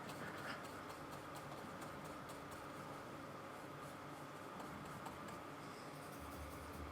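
Faint, quick scratching and dabbing of a paintbrush working acrylic paint onto canvas, over a low steady hum.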